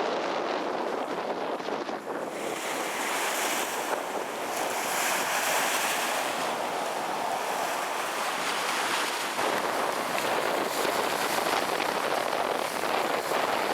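Storm wind and surf from the Gulf as Hermine strengthens to a hurricane: a steady, loud rushing that swells about two seconds in, with wind buffeting the microphone.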